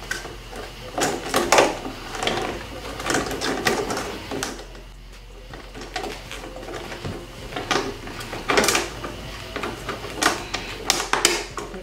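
Hard plastic parts of a stackable shoe box knocking and clicking together as a white plastic panel is handled and pressed into the grooves of its frame: irregular taps and snaps, thickest near the end, as the pieces click into place.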